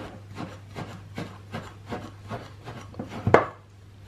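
Spatula stirring coarse bath salt in a glass measuring jug: quick, even strokes of salt crystals scraping against the glass, about two or three a second, with one louder stroke a little after three seconds in. The salt is being worked over to break up the clumps where the essential oil has dropped.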